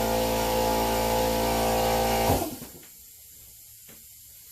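A motor running with a steady whine, then cutting off and winding down about two seconds in.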